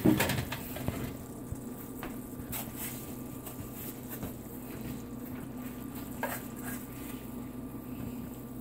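Cheesesteak meat and cheese simmering faintly in its juices in a stainless skillet, over a steady low hum, with a few light clicks of a utensil against the pan. A louder clank comes right at the start.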